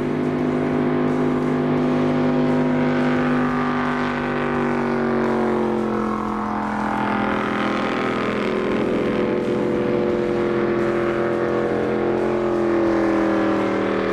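Race jet boat's eight-cylinder engine running hard, its pitch sliding slowly down and then sweeping up again as it goes by. The engine is down on seven cylinders, misfiring from a melted spark plug lead.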